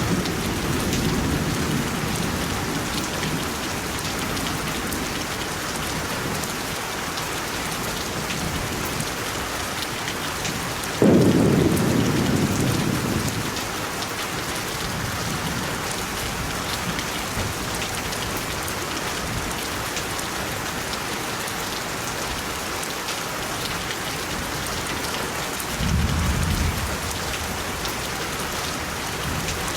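Steady rain with rumbles of thunder: a low rumble fading in the first few seconds, a sudden louder clap about eleven seconds in that dies away over two seconds, and a shorter, lower rumble near the end.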